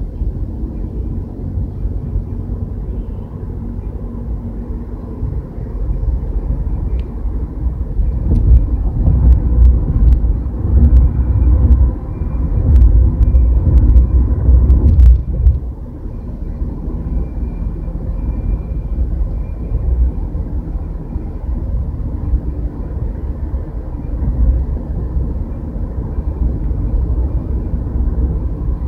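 Car road noise while driving: a steady low rumble of tyres and engine, heard from inside the moving car. It grows louder for several seconds about a third of the way in, with a few faint clicks, then drops back abruptly about halfway through.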